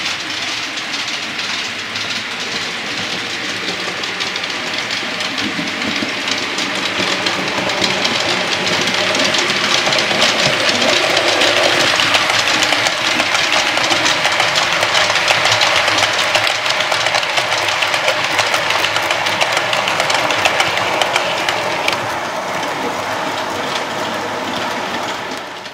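Model railway train, a 9F steam locomotive model hauling iron ore hopper wagons, running along the track: a steady rolling rattle of wheels clicking over the rail joints, loudest about halfway through as it passes close.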